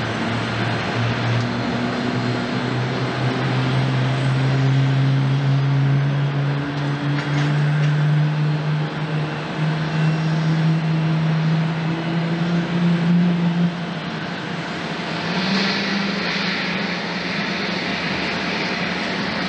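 Airbus A321 jet engines running, their note rising steadily for about thirteen seconds. The note then breaks off suddenly, leaving a steady rush of jet noise with a hiss.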